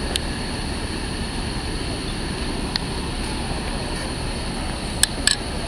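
Hovercraft Solent Flyer running its engines and ducted propellers during systems testing: a steady drone with a faint high whine. A few sharp clicks, two of them close together near the end.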